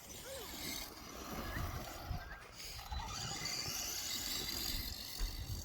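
BSD Onslaught electric RC truck being driven, its motor and tyres making a hissing whine over the ground that grows louder in the second half.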